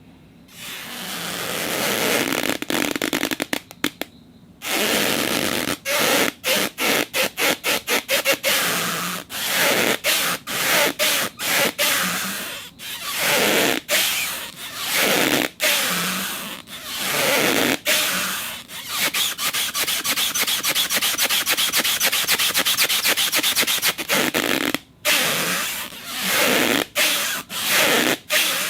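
Acrylic rubbing against a surface in repeated friction strokes of varying length, with a brief pause about four seconds in. About two-thirds of the way through, the rubbing turns into a fast, even chatter for a few seconds.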